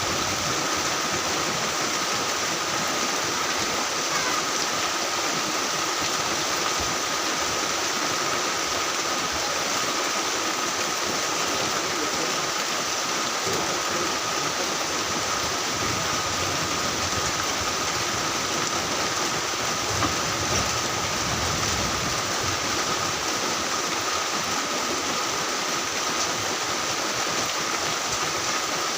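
Heavy rain falling steadily, a dense even hiss with a faint steady high tone running beneath it.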